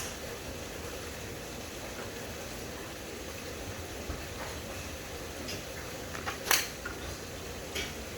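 A golf wedge strikes a ball once with a sharp crack about two-thirds of the way through, over a steady background hiss, with a few faint clicks before it.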